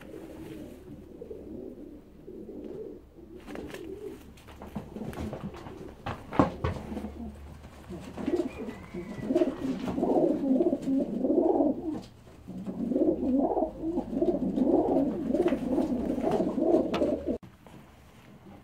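Domestic racing pigeons cooing: low, rolling coos that are faint at first and then run in two long, loud stretches in the second half before stopping abruptly near the end. A sharp knock sounds about six seconds in.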